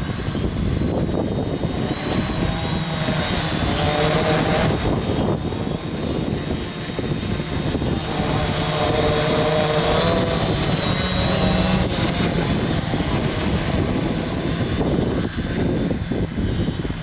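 Quadcopter's electric motors and propellers whining in flight, the pitch sliding up and down as the throttle changes, over wind buffeting the microphone.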